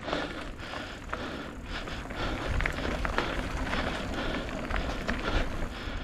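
Mountain bike rolling over a dirt trail: steady tyre noise with scattered clicks and rattles from the bike over bumps.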